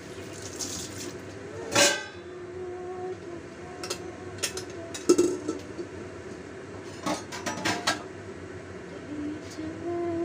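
Sharp metallic clicks and taps from a covered stainless steel wok with a glass lid: a loud one about two seconds in, a few more in the middle, and a cluster near the end, over a steady low hiss of the pan cooking on a gas burner.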